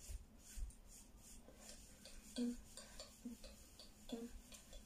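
Faint, spaced-out taps and soft thumps of feet stepping in place on a hard floor during a dance step, roughly one a second, some with a short low hum.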